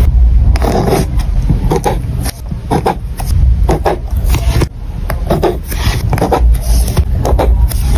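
Ballpoint pen tip scratching across paper in short, irregular strokes as tick marks are drawn, close to the microphone, over a low rumble.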